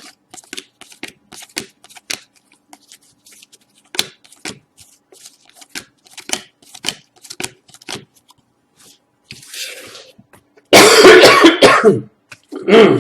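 A man coughing hard from a bad cough: one long, loud coughing fit about eleven seconds in, and a shorter cough just after it. Before that come light clicks and crinkles of trading-card packs being opened and the cards handled.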